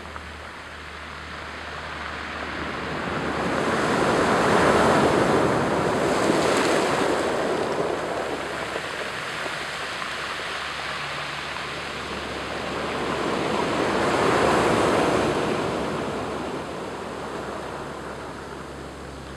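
Surf surging up over a cobble beach and draining back, its rush swelling and fading twice, with peaks about five seconds in and again near fifteen seconds.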